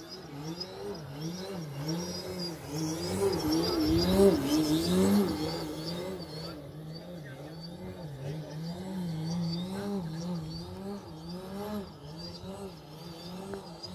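Electric motor and propeller of an AJ Laser 3D aerobatic RC plane on a 12S battery, flying 3D with its pitch swinging up and down over and over, about once a second. It is loudest about four seconds in.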